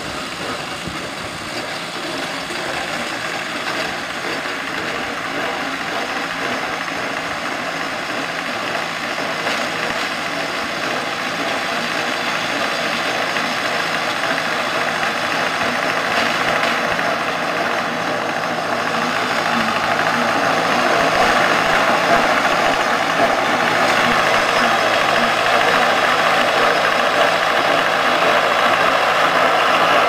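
A tractor engine running steadily while a low-pressure pick-up hay baler works behind it, growing gradually louder.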